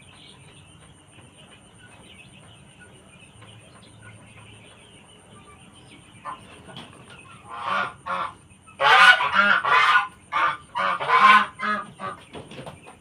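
Domestic chicken squawking in a run of loud, harsh calls starting about six seconds in, loudest in a cluster near the end: the distress cries of a sick bird being held and force-fed.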